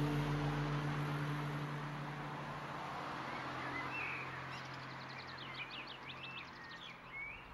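Soft held music notes fading away over the first few seconds, leaving outdoor background noise with birds chirping in quick runs of notes.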